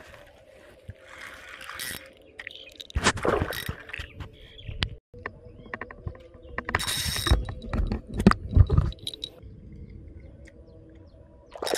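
Fishing reel being cranked to bring in a hooked fish, its gears ticking, with louder rustling bursts about three seconds and about seven seconds in.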